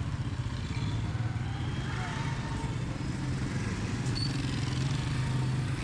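Busy street ambience: a small motor-vehicle engine running steadily with a low hum, with voices of passers-by faintly in the background.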